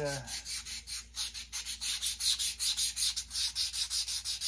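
Hand sanding the edge of a 3D-printed plastic roof piece with a sanding stick, in quick back-and-forth strokes of several a second. This roughs the edges so the super glue will grip.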